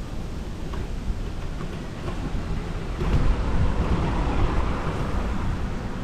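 Wind rumbling on the microphone of a camera riding on a moving bicycle, with road traffic noise swelling about halfway through.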